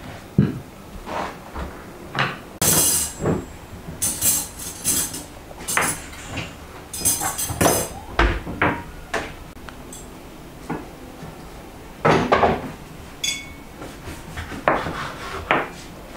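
Ceramic plates and metal cutlery being set out on a table: irregular clinks and knocks of plates put down, with short jingling rattles of forks and knives, and one brief ringing clink near the end.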